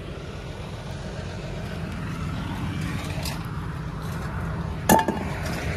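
Steady low rumble of an idling vehicle engine. Near the end comes one sharp metal clang with a brief ring, as a small metal pot is tossed onto a trailer of scrap.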